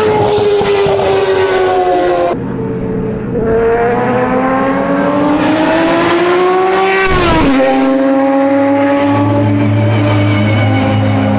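Ferrari racing car engine at speed. Its note falls, then after a cut about two seconds in it climbs steadily for several seconds, drops suddenly about seven seconds in, and settles into a steadier note.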